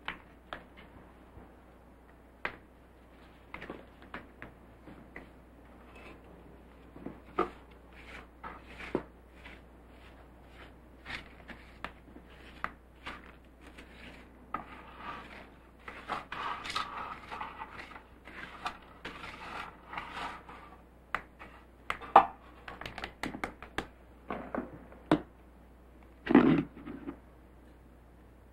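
Handling noises on a wooden floor: scattered clicks and knocks as small objects are picked up and set down, with a stretch of brushing from a hand brush sweeping the floor in the middle and a louder knock near the end.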